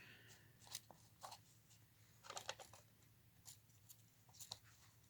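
Near silence with a few faint clicks and taps from plastic 8-track cartridge parts being handled and fitted together.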